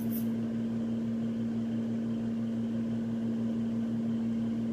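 Steady mechanical hum of a running room appliance: one constant low tone with a deeper drone beneath it and a faint hiss, unchanging throughout.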